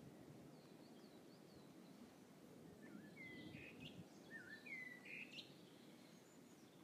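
Faint songbird song: a few clear whistled phrases between about three and five and a half seconds in, over a low, steady background rumble.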